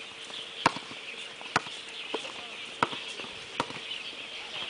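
Volleyball being struck during practice: five sharp smacks spaced roughly a second apart, over a steady high hiss.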